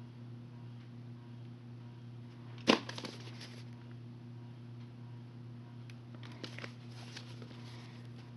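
A VHS tape case being handled and turned in the hand. It gives one sharp knock a little under three seconds in, with a few lighter clicks after it, and another cluster of small clicks and rubbing later on, over a steady low hum.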